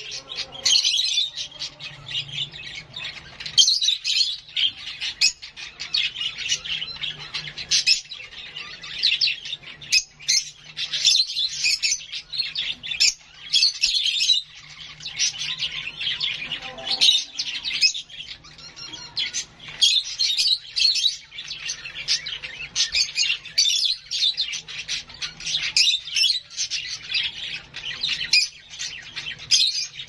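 A young hand-reared lovebird chick calling nonstop with rapid, shrill chirps: the food-begging calls of a chick waiting to be syringe-fed.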